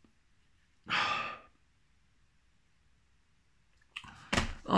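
A man's long, exasperated sigh, breathed out into his hands about a second in, then quiet until a short intake of breath near the end.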